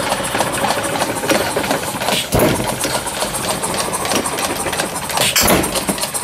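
A one-third-scale 5 HP Galloway hit-and-miss model engine running and firing with a sharp pop twice, about three seconds apart. Between the pops there is a steady mechanical clatter from the belt-driven scale grist mill's works.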